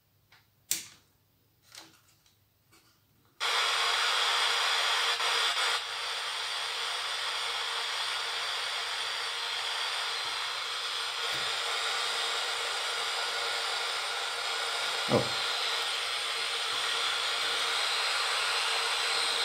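A few small clicks, then about three seconds in an FM radio module's speaker comes on with steady hissing FM static rather than a station. A couple of short knocks from handling the board sound over the hiss.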